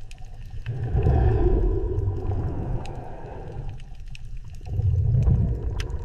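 Underwater ambience: a deep rumble that swells about a second in and again near five seconds, with a faint wavering higher tone during the first swell.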